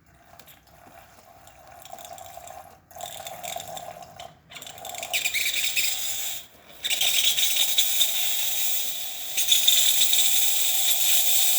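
DeLonghi Magnifica XS steam wand starting up: it sputters in short runs with brief breaks as the water clears, then settles into a loud, steady hiss of steam from about seven seconds in.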